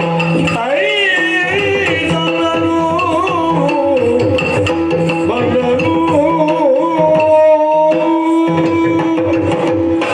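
Yakshagana music: the bhagavata sings a gliding, ornamented line over a steady drone, with maddale drum strokes keeping time.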